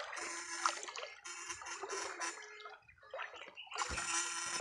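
Shallow creek water sloshing and splashing around a person's legs as they wade, in uneven surges with a short lull about three seconds in and louder splashing near the end.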